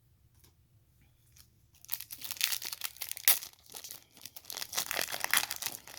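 Plastic foil wrapper of a trading-card pack crinkling and tearing as it is opened and handled, starting about two seconds in after a quiet moment.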